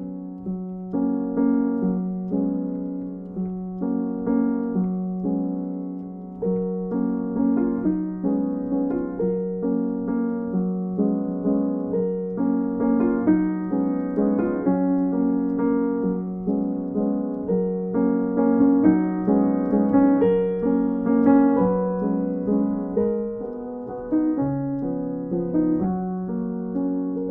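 Background piano music: a gentle melody of repeated notes over a held low note.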